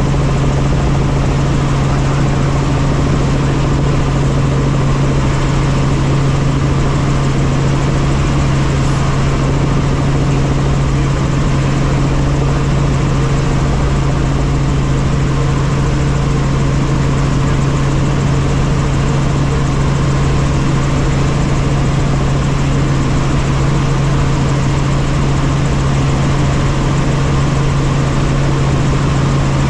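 Light helicopter in steady flight, heard from inside the cabin: a loud, unchanging drone of engine and rotors with a strong low hum.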